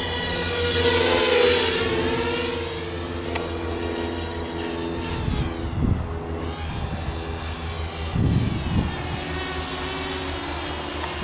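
Walkera F210 racing quadcopter's electric motors and propellers whining in flight, the pitch gliding up and down with the throttle. Loudest about a second in, as it passes close.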